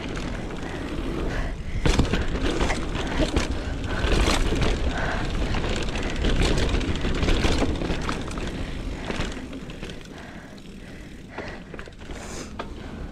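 Mountain bike being ridden down a dirt trail: steady wind rush on the microphone with rattles and knocks from the bike over rough ground, easing off for a couple of seconds near the end.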